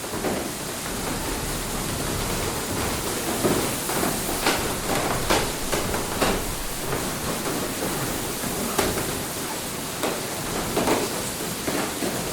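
Water mill: water rushing steadily, with irregular louder splashes and knocks about once a second.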